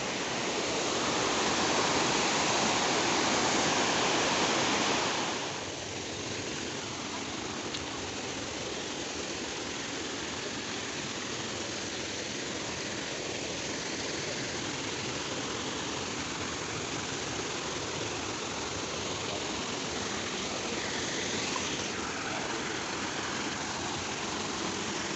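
Waterfall water cascading over rocks: a steady, full rush. It is louder for the first five seconds, then drops to a lower steady level.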